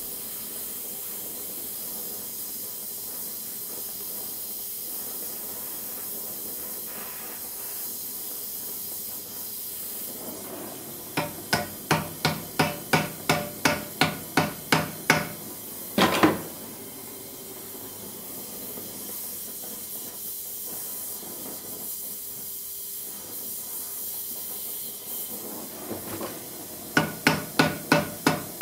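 Gas torch hissing steadily as it heats the top of a sword's pommel. Partway through, a run of quick hammer blows, about three a second, on the glowing end of the tang above the pommel, peening it over, then one louder blow; near the end the hammering starts again over the hiss.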